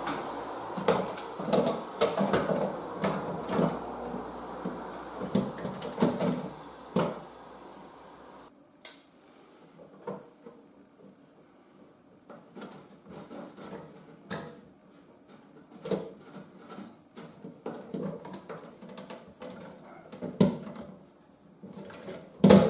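Plastic parts of a concealed toilet cistern's fill valve being handled and fitted back into place by hand: a string of light clicks, knocks and rattles, with one sharp knock near the end. A steady background hiss under the first part cuts off abruptly about eight seconds in.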